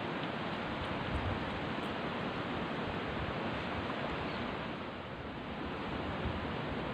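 Steady rushing outdoor noise beside a river, even and without distinct events.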